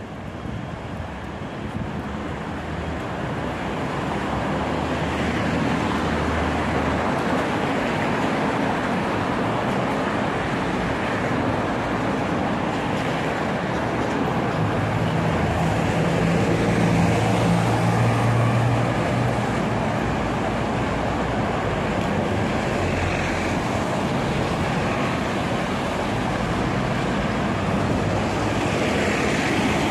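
City street traffic: a steady wash of road noise from passing cars and buses, growing louder over the first few seconds, with a stronger low engine hum from a vehicle about halfway through.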